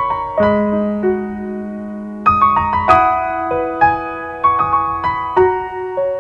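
Background piano music: a gentle melody of struck notes left to ring over held low notes.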